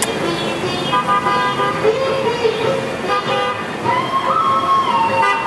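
Busy street traffic with vehicle horns honking over and over at different pitches, the honks overlapping one another. About four seconds in, a longer horn tone steps up in pitch and holds.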